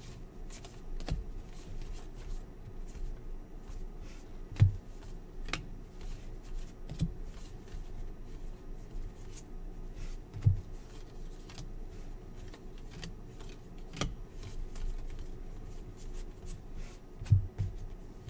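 A handful of basketball trading cards being flipped through by hand: stiff card stock sliding and flicking off the stack in quick light clicks and rustles, with a few louder taps scattered through.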